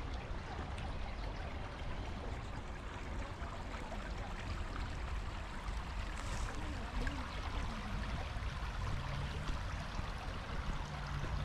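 A stream running steadily, a constant rush of flowing water.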